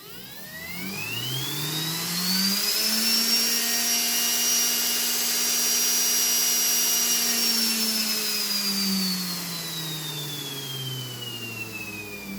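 3D-printed axial-flux brushless DC motor, driven by a JY01 controller, spinning up with a rising electric whine over about three seconds. It holds a steady high whine at full speed, then slows with a falling pitch for the last few seconds.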